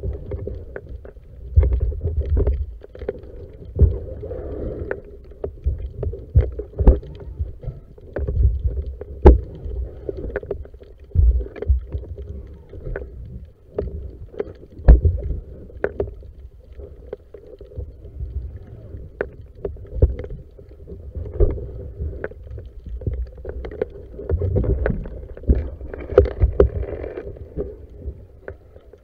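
Underwater sound through a speargun-mounted camera's housing: muffled water movement and low thumps, with frequent sharp clicks and knocks from the gun and gear, over a faint steady hum.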